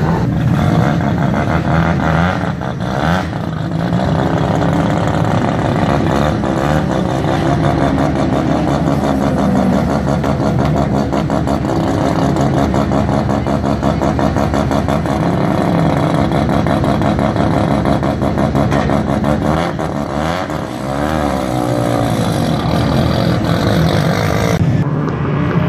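Loud car engine running close by, with a fast, even beat, idling and blipping, rising and falling in pitch about twenty seconds in.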